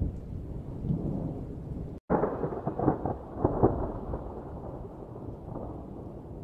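Thunder: a low rolling rumble, broken about two seconds in by a split-second silence, then a louder crackling peal with several sharp cracks that fades back into a rolling rumble.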